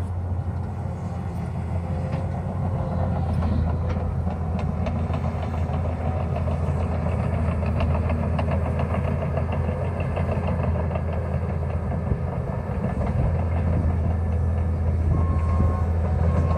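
Diesel engines of a tracked excavator and a bulldozer running under load, a steady low rumble.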